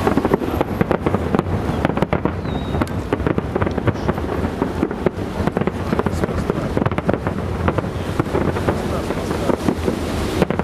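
Aerial fireworks display: shells bursting in a rapid, unbroken string of bangs and crackles, several a second.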